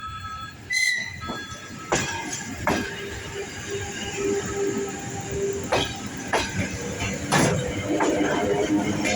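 Electric suburban train at the platform: wheels knock over rail joints at uneven intervals, with steady whining and squealing tones from the running gear and a short high whistle-like tone about a second in.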